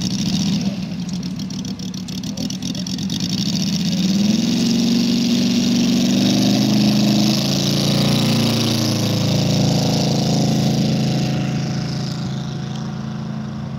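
Moki 250cc five-cylinder radial engine of a quarter-scale RC Hawker Sea Fury running up to full power for its take-off run. Its pitch rises about four seconds in, it is loudest as the model passes close, and it fades as the aircraft climbs away.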